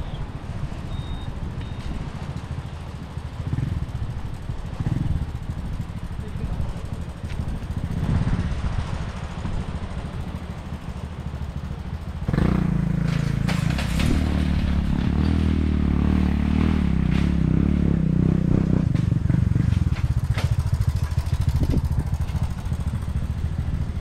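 A motorbike engine comes in suddenly about halfway through and runs close by at a steady, low note, easing off shortly before the end. Before it there is only a low outdoor rumble.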